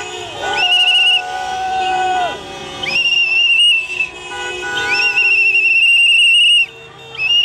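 Celebrating football fans' noisemakers at a car parade: four shrill, high-pitched blasts, each rising quickly to its note, the longest held for about two seconds. Under the first blasts a lower horn note is held for nearly two seconds.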